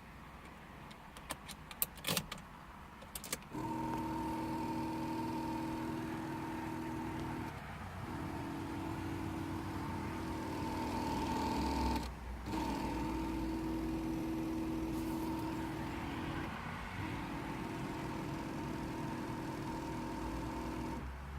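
Several clicks, then from about three and a half seconds in a steady electric motor whine inside an Infiniti G35. It stops briefly and starts again every four to five seconds, over a low rumble. It is the car's malfunctioning CD changer disc-swapping motor.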